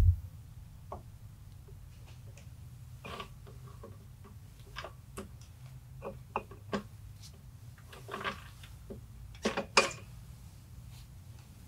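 Scattered metallic clicks and clinks as a mud-motor transmission's planetary gear is worked and spun by hand onto the crankshaft, with a dull bump at the start and a low steady hum underneath.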